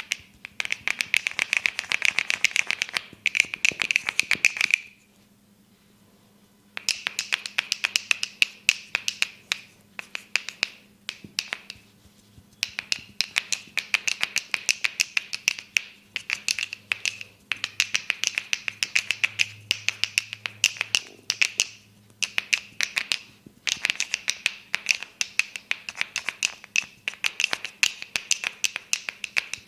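Fast runs of sharp snapping taps from a barber's hands striking the head during a head massage. The taps come many times a second in runs of a few seconds, with brief pauses between.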